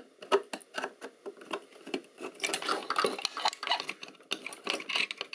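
Metal clicks, rattles and scrapes of an RT-351 military radio's front panel and frame being worked loose by hand, sparse at first and much busier from about halfway through.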